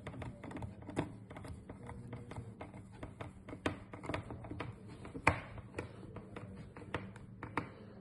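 Small irregular metallic clicks and taps as a screw is driven in by hand to join the two halves of an espresso machine brew group, with a few louder clicks among them.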